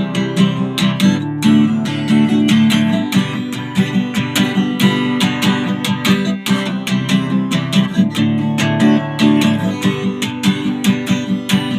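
Acoustic guitar strummed in a steady, even rhythm, with no singing.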